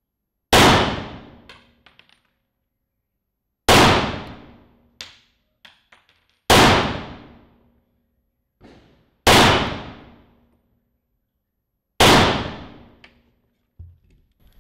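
Five pistol shots from a Glock 34 Gen 4, slow aimed fire about three seconds apart, each ringing out briefly and followed by fainter clicks.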